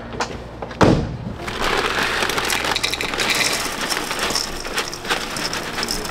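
Dry cereal poured from a crinkling plastic bag into ceramic bowls, a dense crackling rustle, after a single sharp knock about a second in.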